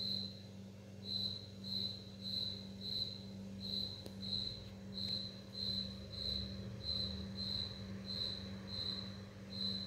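A high-pitched chirp repeating evenly, about two chirps a second, like an insect's song, over a faint steady low hum.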